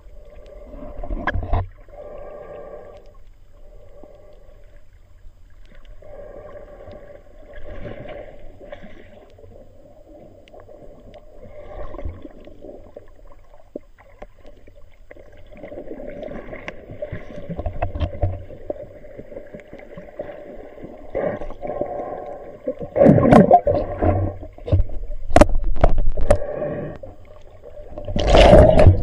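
Muffled underwater sound of water moving and gurgling around a camera just below the surface, with a droning hum. Several loud bursts of water swishing come in the last few seconds as the camera nears the surface.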